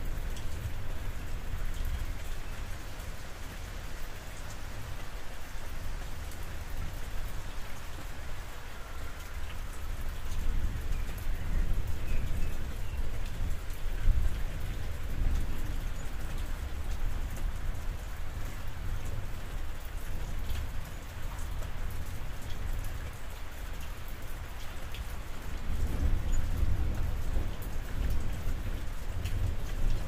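Steady rain falling on a roof, with low thunder rumbling beneath it, swelling now and then and loudest near the end.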